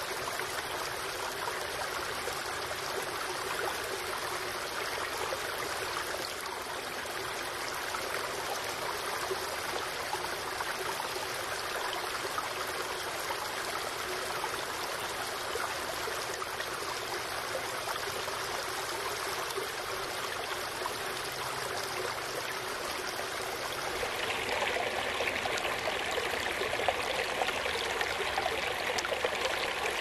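Shallow ephemeral woodland stream running over moss-covered rocks, a steady trickling flow. About 24 s in it turns into the brighter, slightly louder rush of a small waterfall spilling between boulders.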